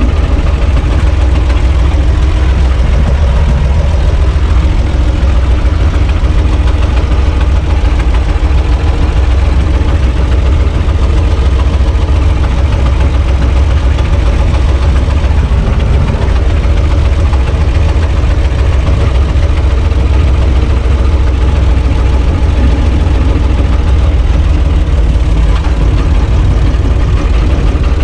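UTB Universal U445 DT 4x4 tractor's diesel engine running steadily while the tractor drives along, heard from inside its cab as a loud, even low drone.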